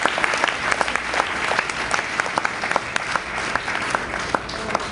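Congregation applauding, many hands clapping together in praise, the clapping thinning out toward the end.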